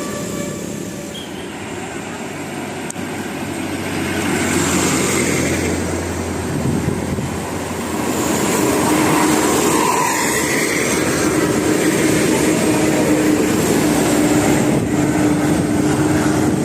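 Large bus running on the road: steady engine and tyre rumble that swells a few seconds in, with a low steady drone joining about halfway through.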